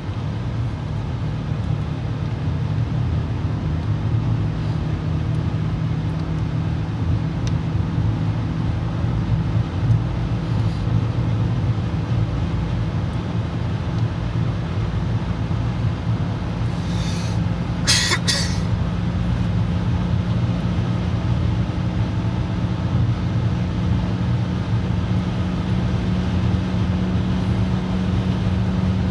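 Car cruising on a motorway, heard from inside the cabin: a steady engine hum with road and tyre noise, the engine note rising slightly near the end. A short sharp noise cuts in about 18 seconds in.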